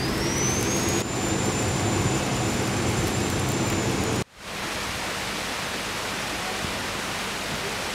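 Steady hiss of electric arc welding on steel, over a low machine hum and a thin high whine that rises during the first second and then holds. About four seconds in it cuts off abruptly, and a quieter steady rushing noise follows.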